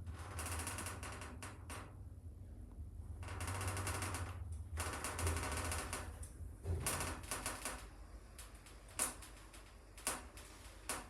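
Passenger lift in operation: a steady low hum under bursts of fast rattling clicks for the first six seconds or so, then a few single sharp clicks.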